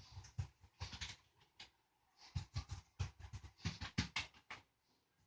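Hands working on a person's towel-covered back during chest physiotherapy to loosen phlegm: a string of soft, irregular pats and rustles, about four or five a second, pausing briefly near two seconds in.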